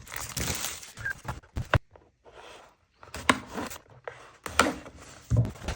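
Cardboard box and packaging being handled and opened: irregular scraping and rustling with a few sharp knocks, pausing briefly about two seconds in.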